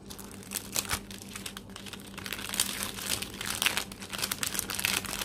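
Clear plastic cellophane sleeve crinkling as fingers peel it open around a card sheet, in quick irregular crackles.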